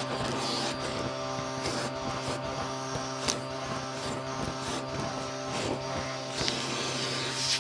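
Vacuum cleaner running steadily with its crevice tool dragged over a shag rug, the motor hum overlaid by scratching and crackling as crunchy debris is sucked out of the pile. A sharp click about three seconds in.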